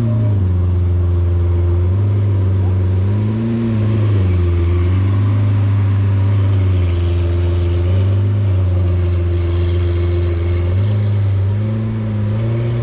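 Lamborghini Aventador's V12 exhaust at a low idle, a deep steady note whose pitch rises and falls slightly every few seconds.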